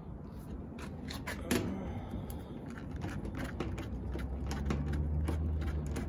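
Hand Phillips screwdriver turning out the screws that hold a washing machine's water inlet valves: a string of small irregular clicks and metal scrapes. A low steady hum comes up in the second half.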